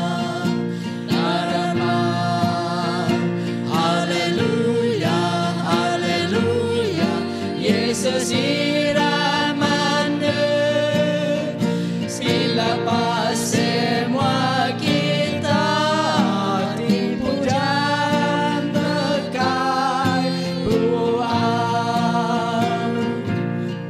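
Men's and women's voices singing a Bidayuh-language gospel song to acoustic guitar accompaniment.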